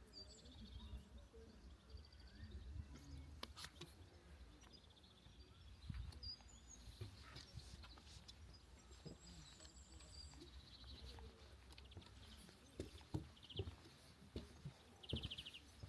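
Faint birds chirping and trilling, with short high calls scattered throughout, over a low wind rumble. A few soft thuds come near the end.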